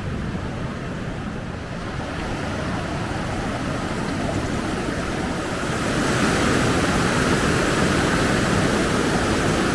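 Steady rush of falling water from a waterfall or cascade, growing louder and brighter about six seconds in.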